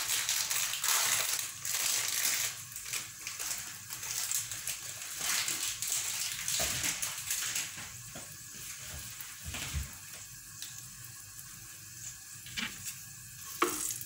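Butter and a garlic clove sizzling in a frying pan: a steady crackling hiss that eases off after about seven seconds, with a few sharp clicks near the end.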